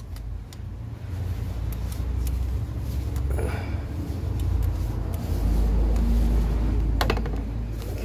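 A few sharp small metallic clicks and light rattles as hands work the bolts and fittings of a car's air-conditioning high-pressure pipe, over a steady low rumble that swells in the second half.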